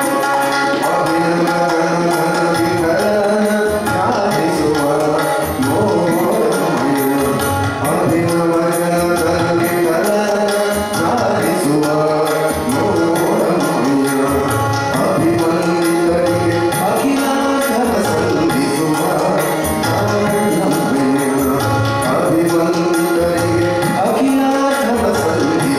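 Kannada devotional bhajan sung live by a male lead vocalist, accompanied by tabla and harmonium in a steady rhythm.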